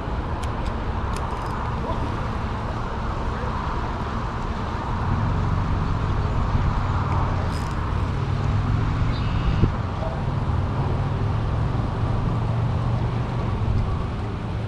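Steady rush of a shallow river's current running over a riffle, with a low rumble underneath that grows slightly about five seconds in. A single short click comes near the ten-second mark.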